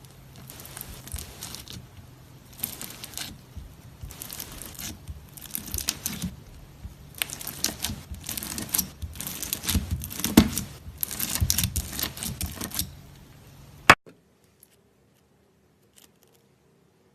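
Slime being squeezed and stretched by hand, giving a series of crackling, crinkling bursts one after another. A sharp click comes about fourteen seconds in, after which it goes nearly silent.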